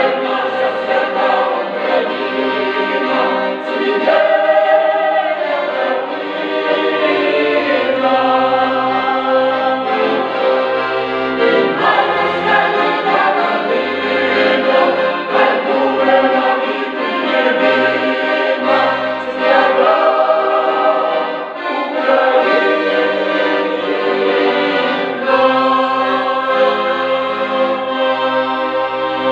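Mixed folk choir of women's and men's voices singing a song in harmony, with an accordion accompanying, its low bass notes steady beneath the voices.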